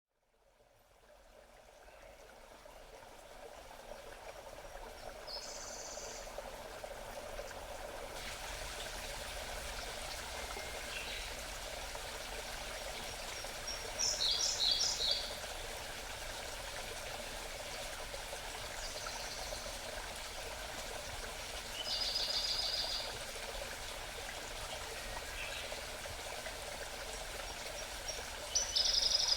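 Forest stream babbling steadily, fading in over the first few seconds, with wild birds singing short high phrases over it about five times; the loudest come about halfway through and right at the end.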